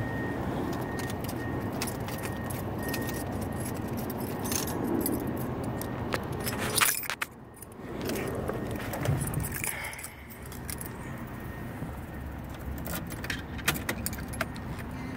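Car keys jangling on a key ring, with clicks of handling, as the key is put into the ignition switch of a 1971 Toyota Celica; a sharp knock about seven seconds in.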